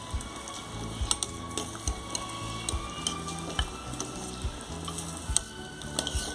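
Pot of pig trotters and carrots boiling hard, a steady bubbling broken by frequent sharp clicks and clinks of a metal ladle against the steel pot and a glass bowl as pieces are lifted out.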